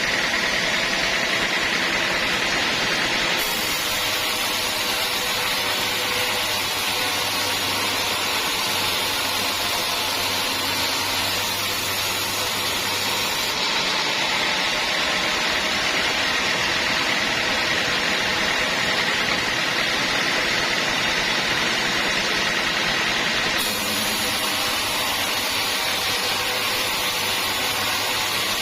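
Sawmill saw running steadily while sawing teak logs, with a high whine that comes and goes. The sound changes abruptly a few times.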